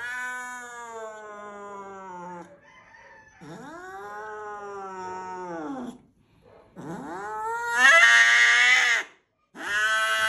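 White long-haired cat yowling angrily: four long drawn-out howls, the first two falling away in pitch and the last two much louder.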